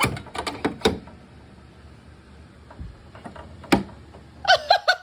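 Wooden cabinet drawers and fittings of a vintage sewing machine desk being handled: a quick cluster of clicks and knocks, then a single sharp knock a little before four seconds in.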